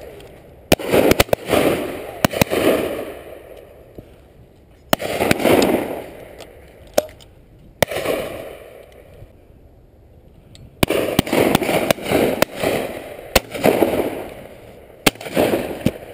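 Shotguns firing at driven pheasants: repeated shots in three bursts. Some are loud and close with a long rolling echo; others are fainter single cracks.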